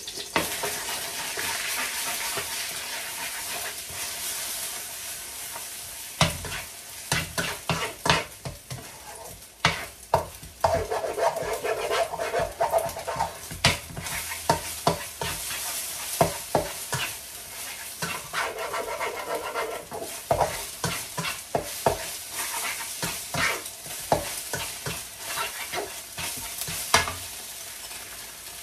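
Eggs sizzling in hot oil in a non-stick wok while a spatula stirs and breaks them up into scrambled egg, with many sharp taps and scrapes of the spatula against the pan.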